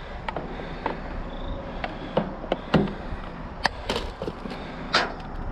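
Irregular knocks, clicks and rustles of junk being shifted inside a steel dumpster as a small appliance is pulled out by its power cord, over a steady low rumble.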